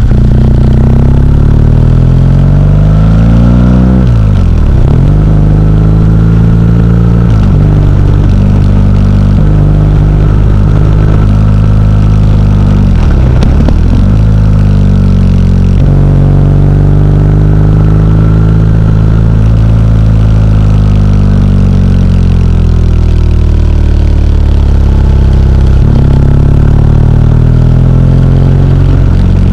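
A motorcycle engine heard close up on the moving bike, revs rising and falling as it rides through a run of bends. The pitch dips sharply and climbs back twice, about four and thirteen seconds in.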